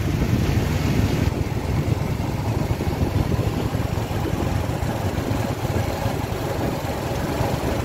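Steady low rumble and rushing road noise of a vehicle driving along a city road, heard from on board.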